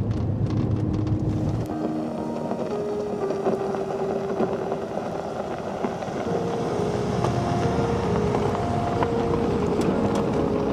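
Car driving on a snow-covered road, a steady rush of engine and tyre noise, with soft background music holding long notes over it.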